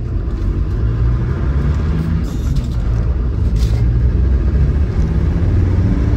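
Land Rover Defender 90's TD5 five-cylinder turbodiesel engine and road rumble heard from inside the cab while driving, a steady low drone that slowly gets louder as the vehicle picks up speed, with a couple of light clicks about halfway through.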